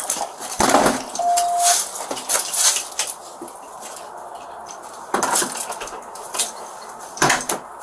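Clatter and rustle of gear and clothing close to a body-worn camera's microphone: a handful of sharp knocks and rattles scattered through, with a short steady beep about a second in.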